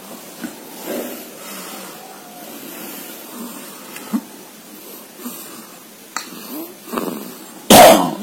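One-month-old baby's noisy breathing in sleep: small irregular grunting, snoring 'grok grok' sounds, which the uploader puts down to a newborn's still-developing airway and counts as harmless. A sudden loud cough-like burst comes near the end.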